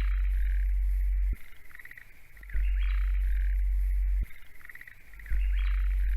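Handheld bird call being twisted, giving clusters of squeaky, rapidly repeated chirps about every three seconds. A loud, very deep hum cuts in and out in blocks of a second and a half or so, and is the loudest thing in the sound.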